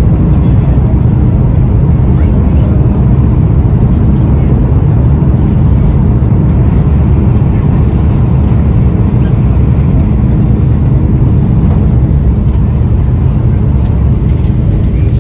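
Steady cabin noise of an Airbus A330 climbing after takeoff: its Rolls-Royce Trent 700 turbofans running at high power, with rushing air, heaviest in the low range.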